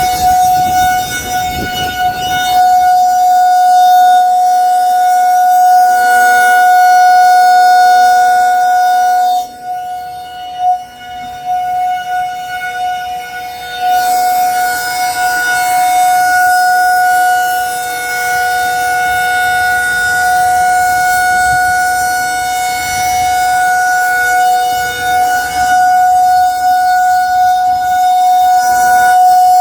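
Federal Signal 2001-SRN outdoor warning siren sounding its steady alert tone at one constant pitch. The tone dips in loudness for a few seconds about ten seconds in as the rotating horn turns away, then swells back.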